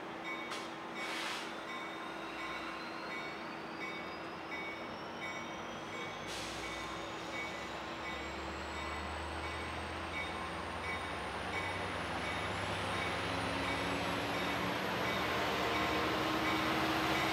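Metrolink MP36PH-3C diesel locomotive pulling away from the station, its engine growing louder as it accelerates toward the listener. A high whine climbs steadily in pitch.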